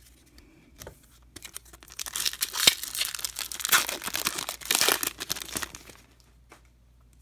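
A baseball card pack's wrapper being torn open and crinkled by hand, a run of crackling tears from about a second and a half in until near the end.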